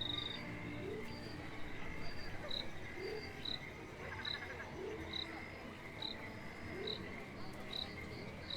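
Chorus of insects and frogs, the themed area's insect-sound effects: a dense background trill, short high chirps repeating a little more than once a second, and low rising calls about every two seconds.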